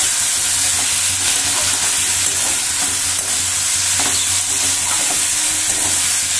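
Potato strips, green peas and tomato sizzling in hot oil in a metal kadai, stirred and turned with a metal spatula that scrapes and clicks lightly against the pan.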